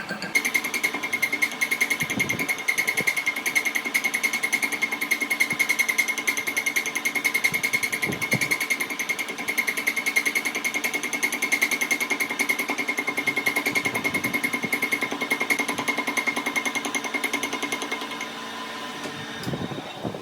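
Metalworking machine tool running steadily with a fast, even rhythmic clatter and a steady high whine, dropping away near the end.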